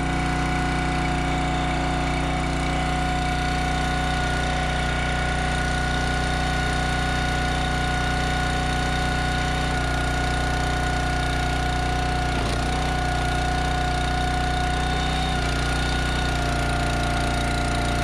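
Log splitter's gas engine running steadily, with a steady high whine over the engine note. The whine dips briefly about twelve seconds in and shifts pitch slightly a few seconds later.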